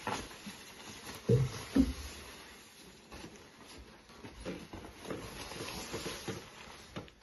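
Nylon puffer jacket rustling as it is pulled on and shrugged into place. Two short, loud low thuds come about a second and a half in, half a second apart.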